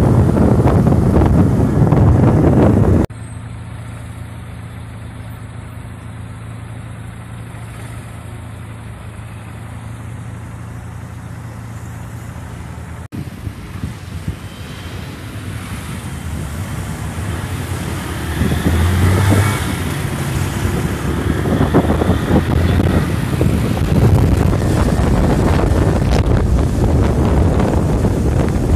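Wind buffeting the microphone on a moving motorcycle, with the engine running underneath. About three seconds in the wind noise cuts off suddenly, leaving a quieter steady engine hum for about ten seconds; then the wind and engine noise build up again.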